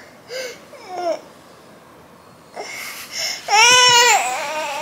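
Newborn baby crying in short bouts: a few brief whimpering cries, a short lull, then a louder high-pitched wail about three and a half seconds in that trails into more crying.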